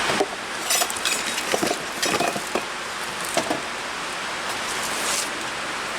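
Irregular light clicks, clinks and knocks of small hard objects being handled, mostly in the first half, over a steady hiss.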